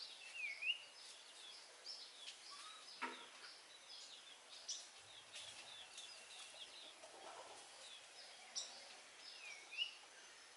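Faint, high chirping of small birds, many short chirps with a dipping call near the start and another near the end.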